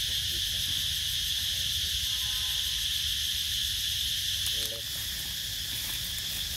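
Insect chorus in forest, a continuous high-pitched buzz that dips slightly in level about two-thirds of the way through.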